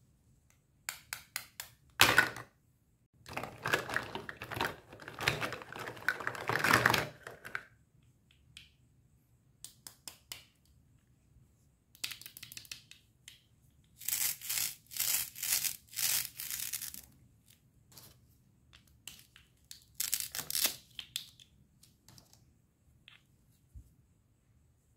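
Plastic toy fruit halves being pulled apart at their hook-and-loop pads: several bouts of ripping rasps, each lasting one to four seconds. Between them, the plastic pieces clack against each other, with one sharp clack about two seconds in.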